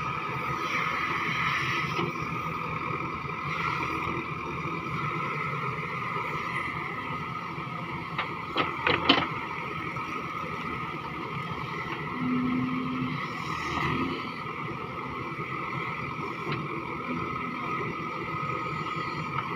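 JCB backhoe loader's diesel engine running steadily with a constant drone while the rear bucket digs and lifts soil. A short burst of sharp knocks comes about nine seconds in.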